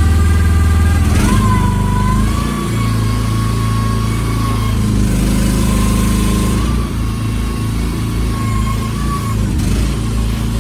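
Vicsec VC13C mini excavator's small engine running steadily. About a second in, its note shifts and a wavering whine comes in as the hydraulics are worked.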